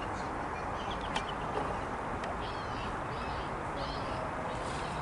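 Small birds chirping in short calls, repeated several times and more often in the second half, over a steady rushing background noise.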